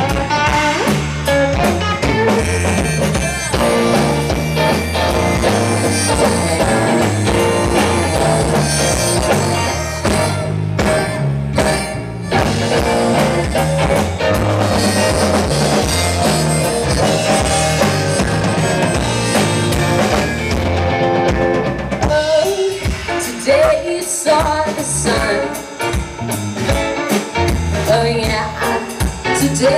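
Alternative rock band playing live: electric guitar, bass guitar and drum kit, with a woman singing. About 22 seconds in, the full band drops back to a sparser passage.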